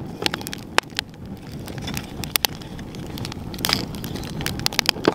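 A wood fire of split kindling burning in a grill, crackling with sharp, irregular pops over a steady low noise.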